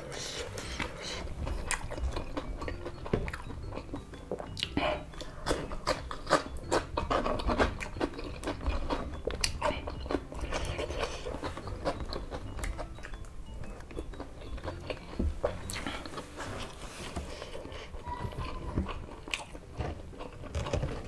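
Close-up eating sounds: wet chewing of rice and crispy chicken nuggets coated in chilli sambal, with many irregular mouth clicks and small crunches.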